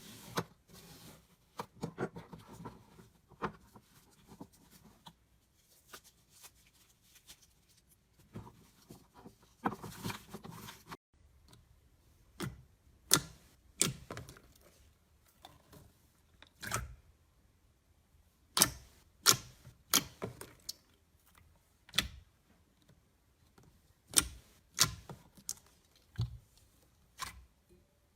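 Slime being handled, making sharp clicks and pops. They come in quick crackling runs at first, then after a sudden change about eleven seconds in as single louder pops a second or so apart.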